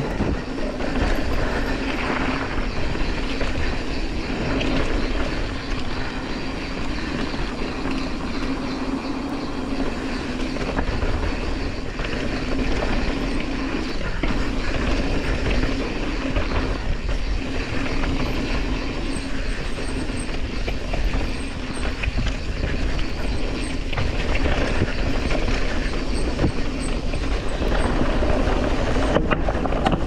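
Mountain bike rolling down a dirt trail: steady rumble of the tyres over the ground with the bike rattling.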